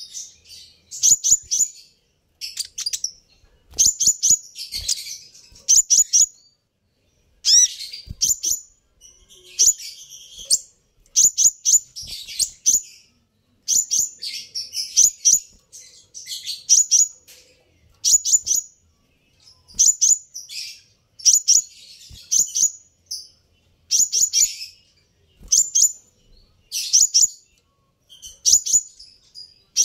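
Sunbird calling: quick bursts of three or four high, sharp chips, repeated every second or two with short pauses between, with a few faint knocks.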